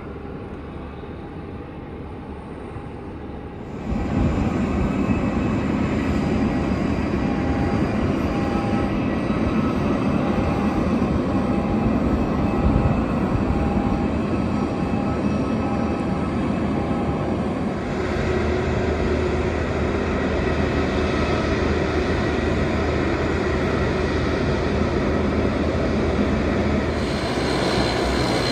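Jet airliner engines running loud and steady, with a sudden jump in loudness about four seconds in and further abrupt shifts later. A faint short beep repeats at an even pace for about ten seconds in the middle.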